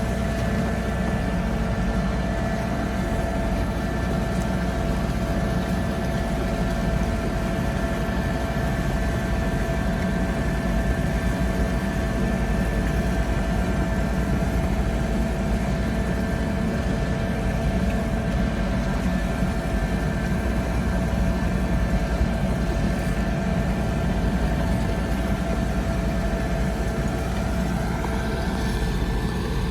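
Heavy earthmoving machine's diesel engine running steadily: a constant low drone with several steady high whining tones over it.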